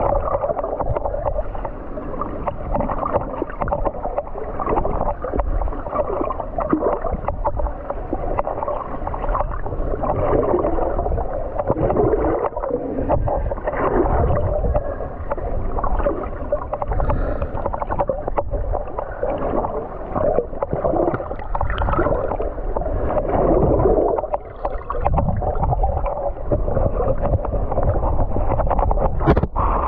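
Muffled underwater sound picked up by a submerged camera: water gurgling and sloshing against the housing, dull and without any high end. A couple of sharp clicks come near the end.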